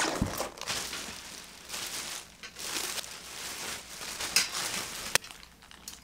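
Plastic wrapping crinkling and rustling as it is pulled off a light blue metal folding frame. There is a sharp click at the start and another about five seconds in.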